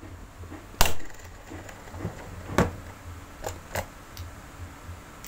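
Sharp metal-on-metal knocks of a screwdriver struck against a second screwdriver wedged in a blender's plastic drive coupling, tapping it clockwise to break the coupling loose from the motor shaft. The loudest knock comes about a second in and another in the middle, followed by a few lighter clicks.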